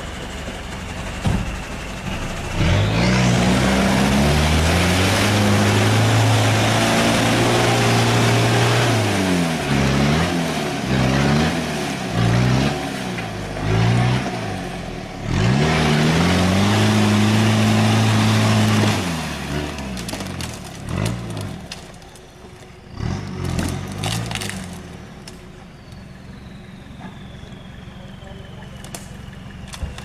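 UAZ off-roader on 37-inch Bogger mud tyres revving hard, the engine pitch rising and falling again and again as the wheels spin and throw mud. The revving drops away after about 19 seconds, leaving a lower engine note with a couple of short revs.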